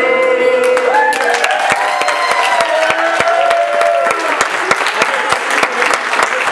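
Crowd clapping and cheering: the last sung note fades in the first half-second, then from about a second in clapping breaks out with gliding shouts and whoops over it, growing into thick, steady applause.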